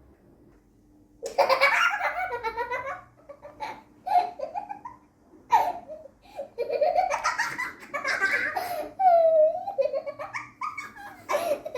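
A young girl laughing heartily in repeated bursts of rapid giggles, beginning about a second in, with one longer drawn-out squeal about nine seconds in.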